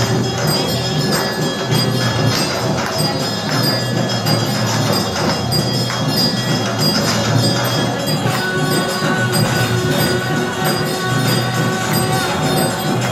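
Temple aarti music: bells ringing with jingling percussion, running steadily.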